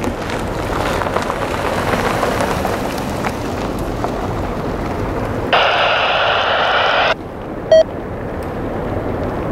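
Diesel freight locomotive horn sounding one long chord blast of about a second and a half, starting about five and a half seconds in, over a steady rumble. A very brief sharp tone follows about half a second after the blast.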